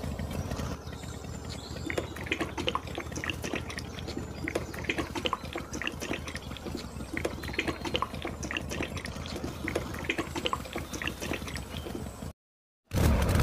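Oil trickling from a small spout into a glass dish, with many small irregular drips and plops over a low steady hum.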